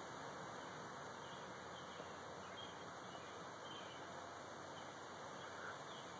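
Faint, steady background hiss; the drag and the exhale of smoke make no distinct sound above it.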